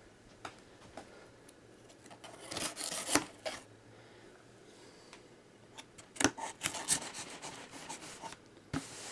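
A cardboard shipping box being worked open by hand: rasping, scraping strokes of cardboard and tape in two spells, with a few short clicks and taps between them.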